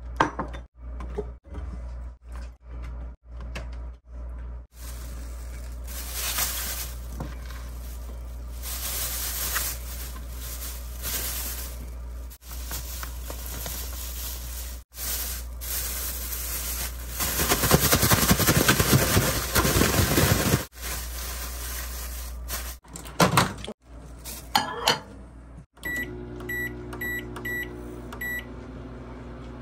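A plastic bag rustling as frying-flour mix is poured over shishito peppers inside it, then the bag shaken hard for about three seconds to coat them. Near the end a microwave oven's control beeps about twice a second, five times, as its dial is turned, over a low hum.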